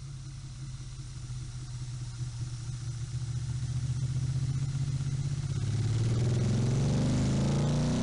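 Motorcycle engine running steadily and growing louder, then revving up from about six seconds in.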